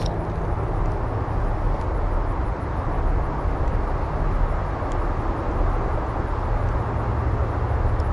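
Steady low rumble of wind on the microphone mixed with traffic on the nearby highway.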